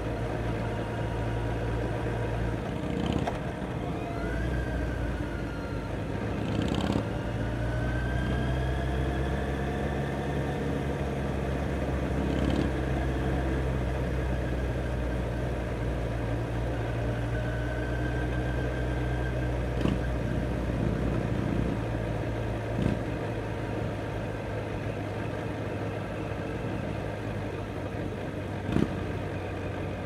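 Kawasaki Z900 inline-four motorcycle engine running steadily at low revs, with other motorcycle engines rising and falling in pitch around it. A few sharp clicks stand out, the loudest near the end.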